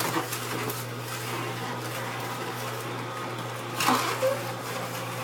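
Hurom slow juicer running: its low-speed motor hums steadily while the auger crushes apple pieces fed into the chute, with a brief louder noise about four seconds in.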